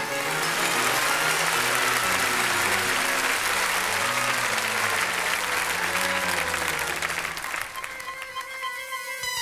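Audience applauding over the act's backing music, breaking out all at once and dying away near the end.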